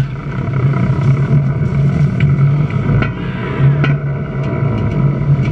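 Shipboard underway-replenishment fuelling rig during an emergency breakaway: a steady low mechanical hum with rushing wind and sea. It starts with a sharp knock and is broken by a few metallic clicks as the fuel probe is pulled from its receiver and hauled back along the span wire.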